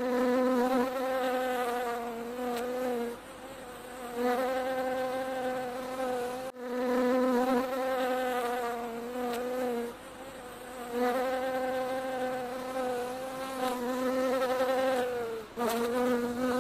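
Buzzing bee sound effect: a steady low buzz that swells and fades in several passes, with short dips between them.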